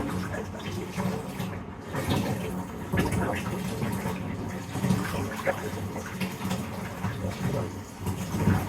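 Running water from a bath tap filling a bathtub, a steady gurgling splash.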